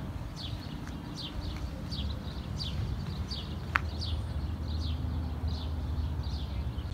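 A songbird outdoors repeating a short, high, downward-slurred note about every three-quarters of a second, over a low steady rumble, with one sharp click about halfway through.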